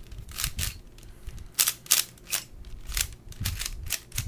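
Plastic pieces of a 3x3x4 puzzle cube clicking as the cube is handled and its last center cap pressed in: about a dozen sharp, irregular clicks.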